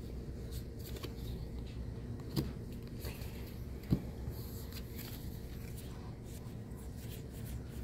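Trading cards being handled and laid down on a playmat: faint sliding and rustling of cards, with two light taps about a second and a half apart.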